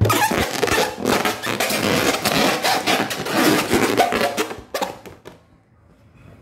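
Latex balloon rubbing and squeaking against the microphone as a pink balloon is handled and inflated right at it: a loud, scratchy rustle for almost five seconds that then dies down.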